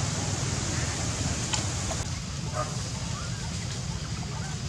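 Outdoor background: a steady low rumble under a faint hiss, with a few faint short chirps and light clicks.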